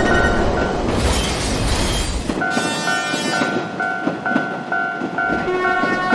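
Railroad crossing warning bell ringing 'kan-kan' about twice a second while a train rushes past the crossing; the train's rumble stops about two and a half seconds in, leaving the bell ringing on its own.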